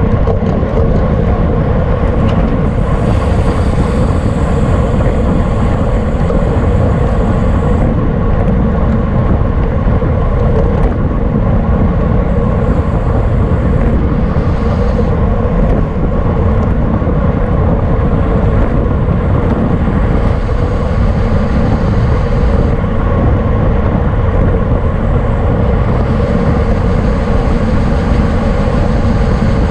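Steady wind rush over the microphone of a camera riding on a racing bicycle at speed, heavy in the lows and unbroken.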